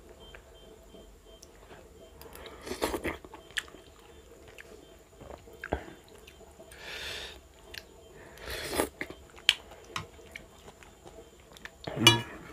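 A person eating a pasta lunch: chewing and biting, with scattered small clicks of cutlery on the dish and a few short louder bursts, the loudest just before the end.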